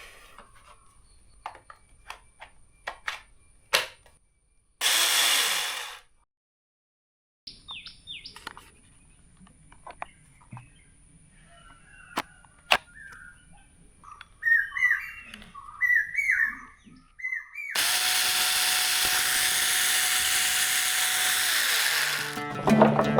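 A few clicks and a short burst of noise, then birds chirping in quick falling calls, then a small battery-powered mini chainsaw running steadily for about four seconds near the end.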